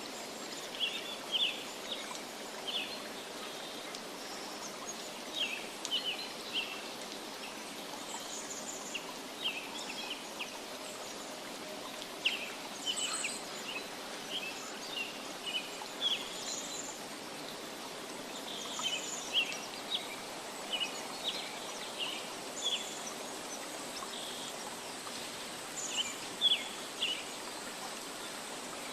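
Nature ambience: a steady hiss of running water, with small birds chirping over it in quick clusters of short, high calls every second or two.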